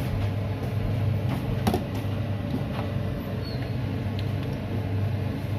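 A steady low motor hum, with a few scattered light clicks as a metal spatula moves pork-skin pieces around in a pan of oil.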